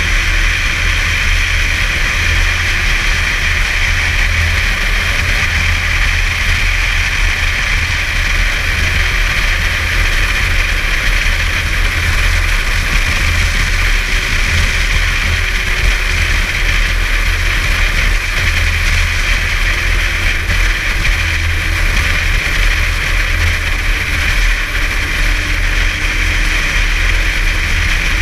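Snowmobile running along a snow trail at steady cruising speed, its engine note drifting slightly up and down. Under it is a heavy, uneven low rumble of wind on the microphone.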